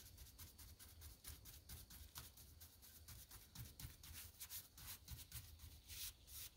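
Faint, scratchy swishes of a wide paintbrush being dabbed and stroked across the rough end grain of a log, spreading stain in quick, irregular strokes, with one longer stroke about six seconds in.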